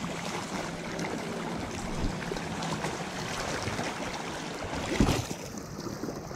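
Shallow creek water running steadily over a riffle, close by, with a brief louder splash about five seconds in as an arm reaches into the water.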